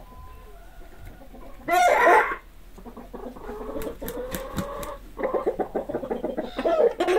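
Chickens clucking: one loud, short call about two seconds in, then a stretch of clucking and a quick run of rapid clucks, with another loud call near the end.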